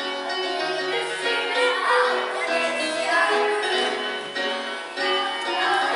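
A woman singing a musical-theatre song with instrumental accompaniment, holding long, wavering notes.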